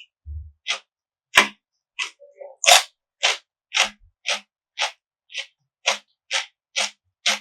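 Close-miked chewing of crunchy food: a steady run of crisp crunches, about two a second.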